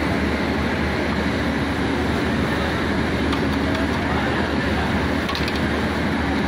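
A steady machine drone at a charcoal grill: a constant low hum with an even hiss over it and no separate knocks or breaks.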